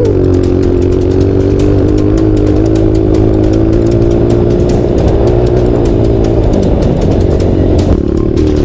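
Single-cylinder four-stroke trail motorcycle engine running at a steady throttle while riding, easing off briefly about six and a half seconds in.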